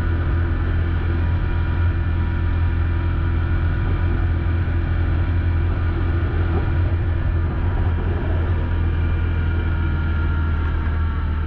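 Engine of a snow vehicle heard from aboard while it is being ridden steadily across snow: a loud, steady low drone with a higher whine above it. The pitch eases slightly down near the end.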